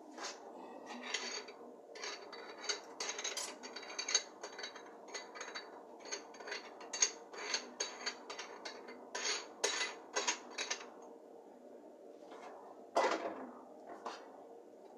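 Kitchenware being handled: a run of quick clinks and knocks of dishes, utensils and metal parts over the first ten seconds or so, then one louder clatter about thirteen seconds in.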